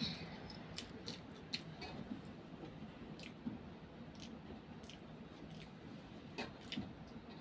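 A child chewing a mouthful of Maggi instant noodles, with scattered small clicks of a fork against a steel plate.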